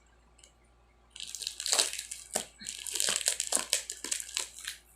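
Crinkling and crunching of a sealed parcel's packaging being gripped and pulled at while being worked open, starting about a second in and going on in quick irregular bursts.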